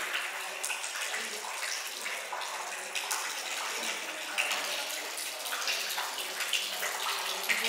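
Thin jet of water from a small fountain falling into a plastic basin, a steady splashing trickle.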